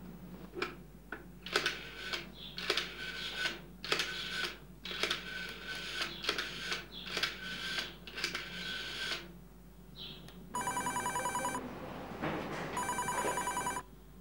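A desk telephone being dialled, a run of clicks and short beeps, followed by a telephone ringing twice with a fast-trilling electronic ring, each ring about a second long.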